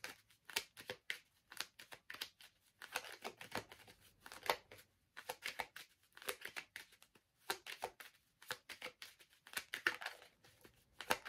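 Tarot cards being handled and shuffled: faint, irregular rustling and light clicks of card stock, many times over.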